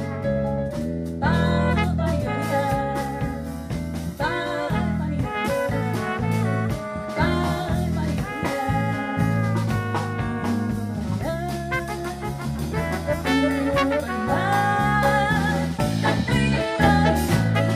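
Live jazz ensemble of bass, drum kit, piano and horns playing a chacarera, the Argentine folk dance rhythm, with melodic lines of held and sliding notes over a steady bass and drums.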